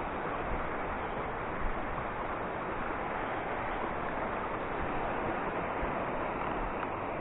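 Steady, even rushing noise outdoors, with no speech and no distinct events.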